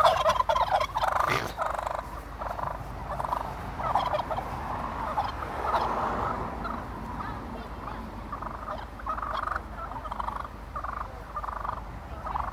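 Wild turkeys calling in a long string of short, repeated calls.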